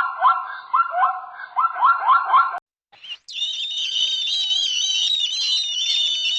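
Fast repeated short calls from an animal, about three a second, each rising sharply at its start. They stop suddenly; after a short gap comes a dense, continuous high chirping of many birds.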